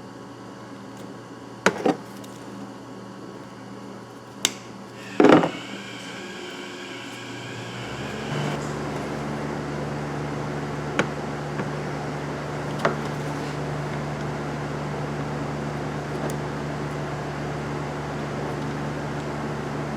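A few sharp clicks and a clatter of tool handling, then from about eight seconds a steady electric heat gun running, blowing hot air to shrink heat-shrink eyelet terminals on a repaired ground wire.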